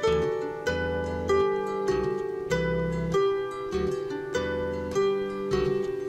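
Harp being played: a plucked tune with low bass notes under the melody, a new note struck about every half second and left to ring.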